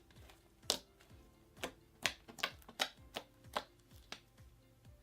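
Clay-based slime being squished and poked by hand, giving irregular sharp clicks and pops, about two a second.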